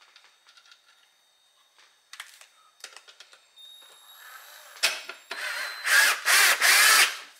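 Cordless drill running in spurts as it drives a bolt home on a car seat's slide track, loudest in two short bursts near the end. A few light clicks and knocks of metal parts being handled come before it.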